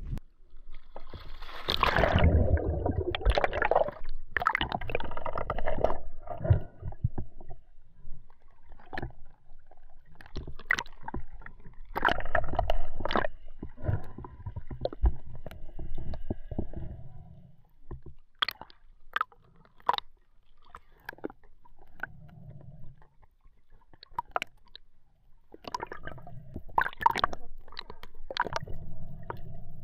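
Water sloshing and gurgling around a freediver's camera as it goes under and back up to the surface. A loud rush of splashing comes about two seconds in. Sharp clicks and knocks are scattered through the rest, and there is more sloshing near the end.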